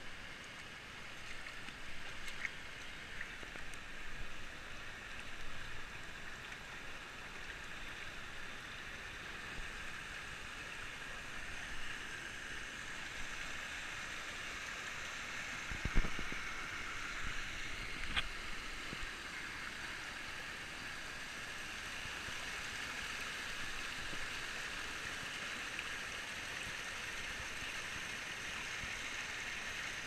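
A shallow, rocky stream rushing steadily over small rapids, with a single sharp knock about halfway through.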